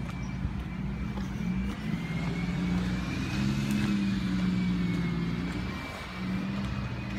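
Bin lorry's diesel engine running as it approaches, a steady low drone that grows louder and then eases off near the end, with a faint high whine above it.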